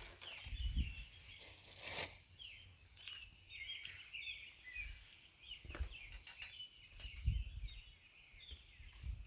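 Faint splashing and dripping of water as hands swish and rub leafy greens in a plastic bowl of water, with a few soft low knocks.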